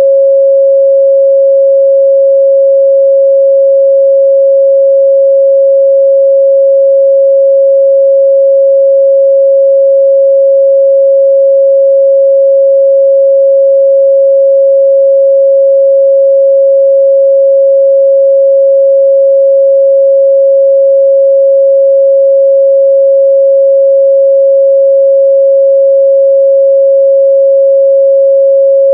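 A steady, loud 547 Hz sine test tone, one pure pitch held without change.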